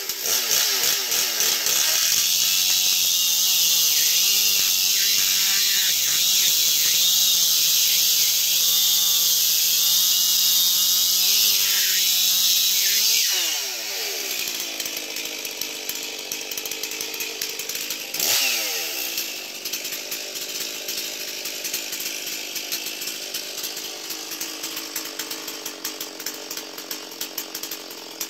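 Ported Stihl MS460 chainsaw, a 77 cc two-stroke, held at full throttle for about eleven seconds with its pitch wavering slightly, then let back down to idle about 13 seconds in. A few seconds later it is blipped once more, briefly, and falls back to idle.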